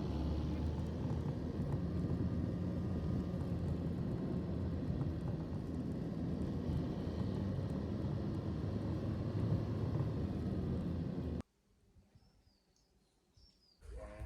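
Steady engine and road rumble of a car heard from inside while driving. It cuts off suddenly about eleven seconds in, leaving quiet with a few short bird chirps.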